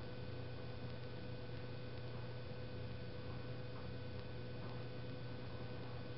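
A steady low electrical hum with a faint steady tone above it, and a few faint, scattered ticks.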